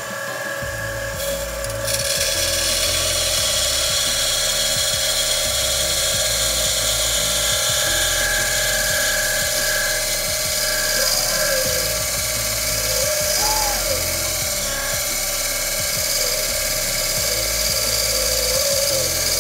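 Benchtop band saw cutting through a metal casting. The blade bites in about two seconds in, and the cut then runs on steadily, with a wavering whine in the second half.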